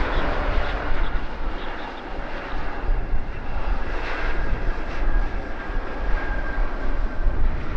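Jet engines of an Air Canada Boeing 787-9 Dreamliner on landing: a continuous rush with a faint steady whine through the middle. A heavy low rumble of wind on the microphone runs under it.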